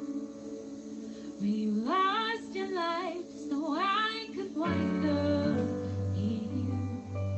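A woman singing a slow contemporary worship song, her voice sliding between notes over sustained accompaniment. A low bass note comes in about two-thirds of the way through.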